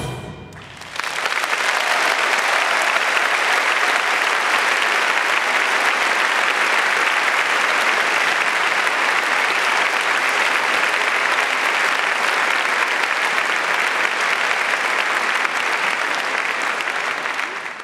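Large audience applauding: the clapping breaks out about a second in as the last chord dies away, holds steady, and fades near the end.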